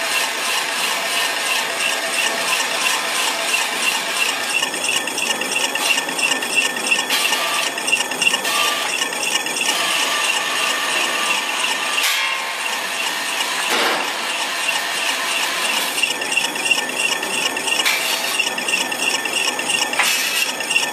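Single-screw snack-food extruder running steadily, producing a continuous mechanical noise with a high-pitched tone that pulses rapidly through it. A couple of brief knocks come near the middle.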